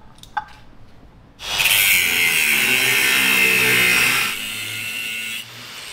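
Angle grinder with a cutting disc biting into steel, starting about a second and a half in and running loud and steady for nearly three seconds, then easing to a lower level, likely trimming over-long wheel studs on a hub. A single sharp click comes just before the grinder starts.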